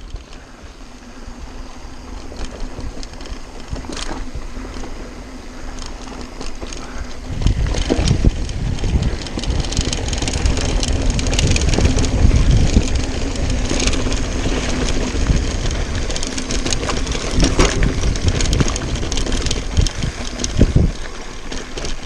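Mountain bike rolling fast down a loose dirt trail: tyres crunching over dirt and small stones, with clicks and rattles from the bike, and wind buffeting the microphone. The wind rumble grows much louder about seven seconds in as the speed picks up.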